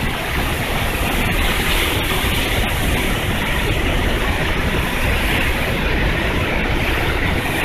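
Zongo Falls: a large volume of water pouring over the rock edge close by, a loud, steady rushing noise that does not let up.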